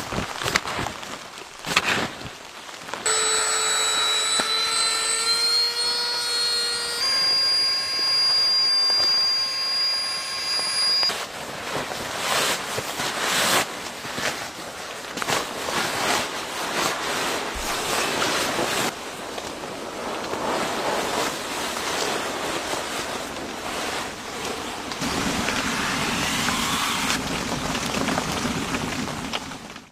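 Storm noise: a steady rush of wind, with high steady whistling tones held from about three seconds in until about eleven seconds in.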